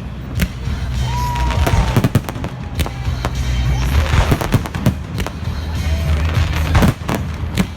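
Fireworks display: repeated sharp bangs at uneven intervals, with a burst of crackling about four seconds in.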